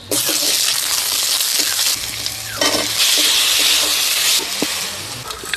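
Curry ingredients sizzling as they fry in hot oil in a pan, stirred now and then with a utensil scraping the pan. The sizzle starts suddenly and swells louder for a while about three seconds in.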